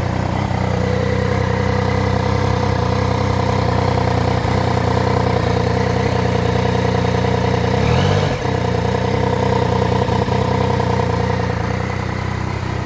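Yamaha Tracer 900 GT's three-cylinder engine idling steadily just after starting, with a brief rise and fall in revs about eight seconds in. The owner hears a strange hollow drone, as if from the air filter, that appeared after the 20,000 km service; he likens it to a sound inside a PVC pipe.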